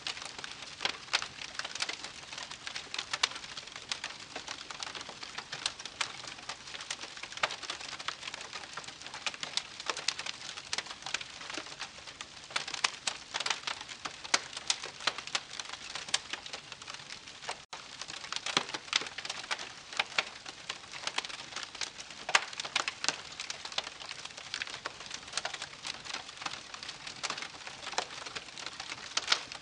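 Wood fire burning with dense, irregular crackles and pops over a soft hiss, with a momentary gap a little past halfway.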